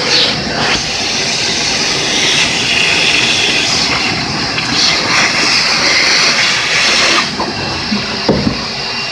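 Shop vacuum running, air rushing into its hose as it sucks up drilled plastic shavings. The hiss of the airflow drops about seven seconds in, and a few light knocks follow near the end.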